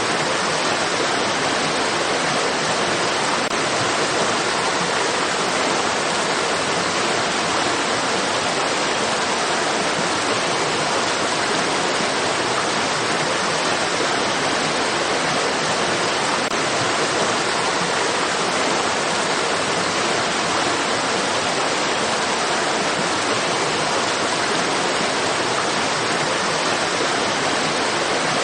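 Stream water rushing steadily: an even, unbroken hiss with no changes or separate splashes.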